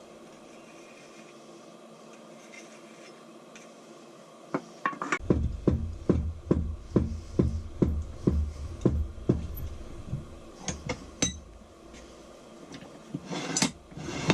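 Heavy metal knocks and clanks, about two a second for several seconds after a quiet start, then a few lighter clicks and more knocks near the end, as a cast-iron engineer's bench vise is handled.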